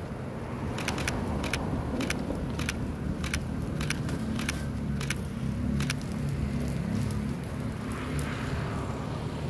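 A bonfire of burning paper offerings and bamboo frames crackling, with irregular sharp pops, most of them in the first six seconds, over a steady low rumble.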